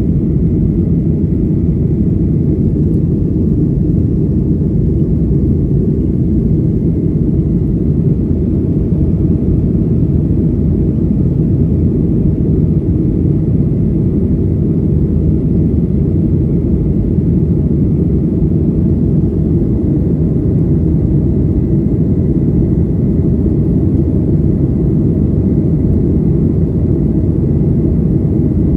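Steady low cabin rumble of a Boeing 737-800 in flight, from its CFM56-7B turbofan engines and the airflow, heard from inside the passenger cabin. A faint thin high tone runs through it.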